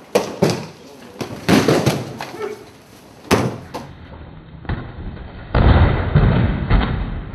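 Bodies being thrown onto tatami mats in aikido throws: repeated slaps and thuds of breakfalls. There are several sharp impacts in the first half, then heavier, deeper thuds near the end.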